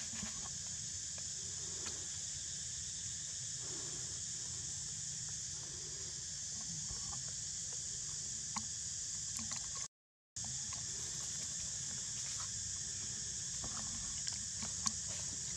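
Outdoor ambience: a steady high hiss with a low rumble underneath and a few faint ticks. It drops out for a moment about ten seconds in.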